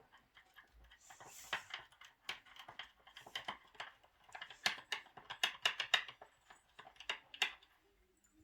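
A spoon stirring dried paprika and oil together in a bowl, clicking against the bowl in a quick, irregular run of ticks.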